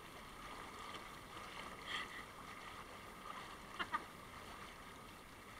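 Hot tub jets churning the water in a steady, low bubbling rush. A short laugh comes just before four seconds in.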